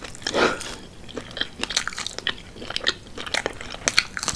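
Close-miked chewing of crispy fried chicken wings: crunchy crackles and clicks of breading and skin between the teeth, in an uneven run.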